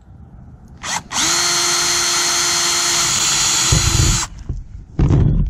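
Cordless drill boring a hole through a black plastic doorbell angle-mount wedge: a short blip of the trigger, then the drill runs steadily for about three seconds with a level whine and stops. A few low knocks follow near the end.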